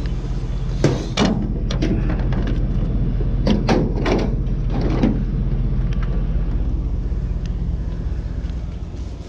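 A vehicle engine idling steadily, with a series of knocks and clunks in the first five seconds or so.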